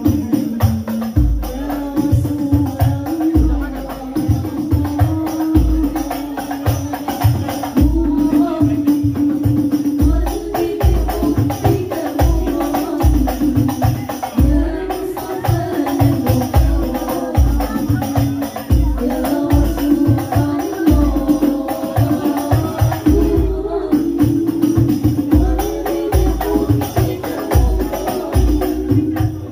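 Music with a steady beat under a held melodic line.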